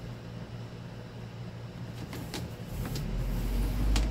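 Several sharp plastic clicks and knocks, a few about two seconds in and one near the end, as the front grille of a Cadence electric fan is handled and fitted, over a steady low hum. A low rumble swells in the last second and a half.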